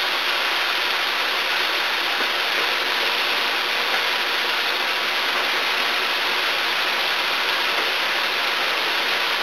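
A steady, even hiss with no distinct strokes standing out.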